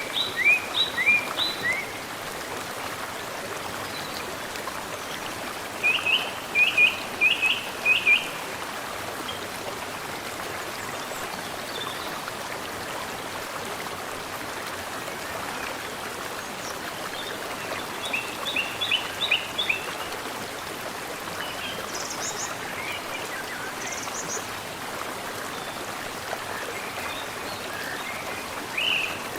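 Mountain stream flowing steadily, with birds chirping in short runs of quick, repeated high notes that come several times, then pause.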